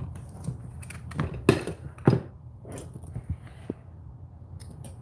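Handling noise: a few sharp knocks and scrapes as things are moved about and set down, the loudest about one and a half and two seconds in.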